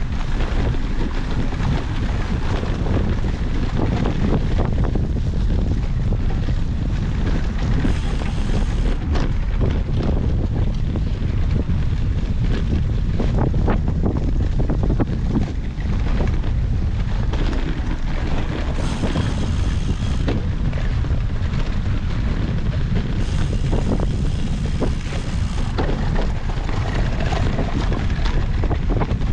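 Wind buffeting the microphone, a steady heavy rumble, with a brief thin high-pitched whine three times: about 8 s in, about 19 s in, and again for a couple of seconds near 24 s.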